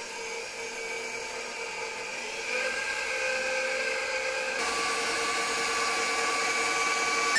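KitchenAid Professional 600 stand mixer running with a wire whisk, whipping heavy cream: a steady motor whine that steps up in speed twice, about a third of the way in and again just past halfway.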